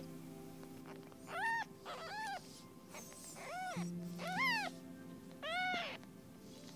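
A cat meowing five times, short high calls that each rise and fall in pitch, over soft background music.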